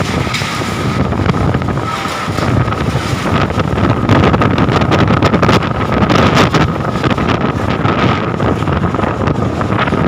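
Strong gusting wind of a sudden whirlwind storm blowing hard and buffeting the microphone in rough, loud surges, growing louder a few seconds in.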